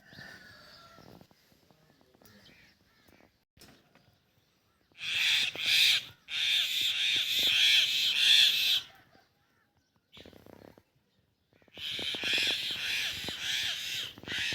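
Harsh, rasping animal calls in three loud bouts: a short one about five seconds in, a longer one just after it, and another from about twelve seconds in.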